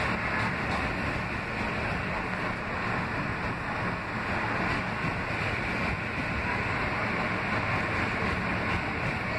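R160B subway car running on elevated track, heard from inside the car: a steady rumble and rush of wheels on rails, unchanged in loudness throughout.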